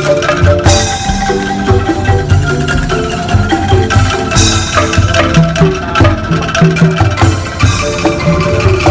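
Street ensemble of bamboo instruments, angklung racks and a calung bamboo xylophone, playing lively rhythmic music with a deep bass line and a steady beat.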